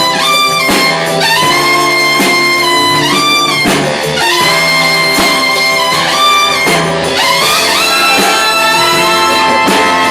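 Big band jazz with the brass section, trumpets in front, playing held, bent notes over a steady beat.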